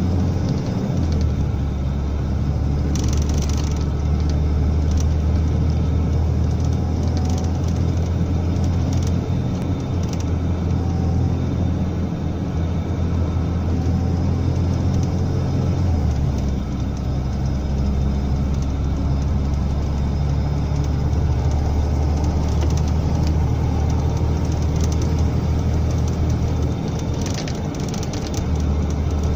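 Engine and road noise of a large vehicle driving, heard from inside its cab: a loud, steady low drone whose pitch shifts about a second in, around halfway, and near the end as the engine speed changes.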